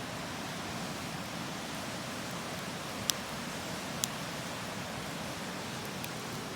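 Steady rush of river water, with two sharp crackles from a wood campfire about three and four seconds in.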